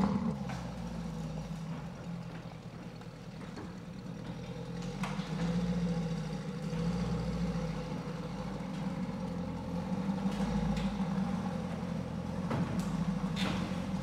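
Lamborghini Urus's twin-turbo V8 idling steadily through a Novitec exhaust, settling down from a rev right at the start.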